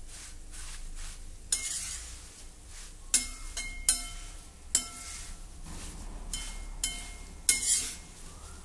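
Metal spoon stirring and scraping dry thin poha (flattened rice) around a stainless-steel kadhai, the flakes rustling as they are tossed in the tempering. About five sharp clinks of the spoon against the pan ring briefly.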